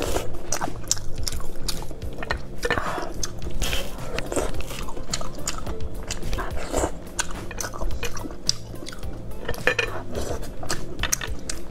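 Wet slurping, sucking and chewing of oysters eaten straight from the half shell, with frequent short mouth smacks, over steady background music.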